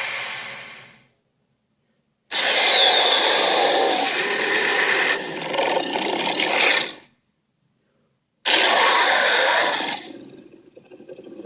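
Made-up dinosaur roar sound effects: harsh, raspy roars separated by silences. One roar fades out about a second in, a long one follows after a gap, and a shorter one comes near the end and trails off.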